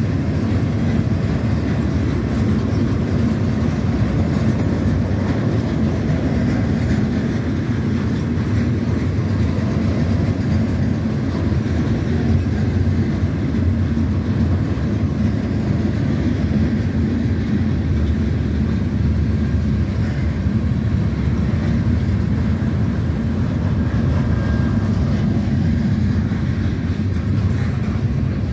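Freight train's loaded container flatcars rolling past at track side: a steady low rumble of steel wheels on the rails.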